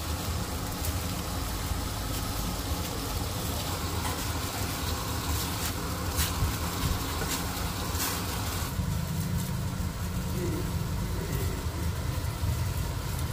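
Steady low kitchen hum with a hiss, from the gas hob under a pan of broth and the cooker hood. A few light metal clicks of a spoon against the pan come in the middle as tofu balls are dropped in. The hum's tone shifts about two-thirds of the way through.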